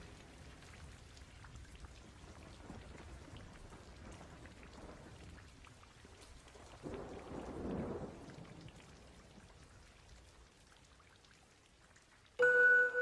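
Steady rain, with a low rumble of thunder that swells about seven seconds in and fades. Near the end, clear bell-like mallet notes begin a slow melody.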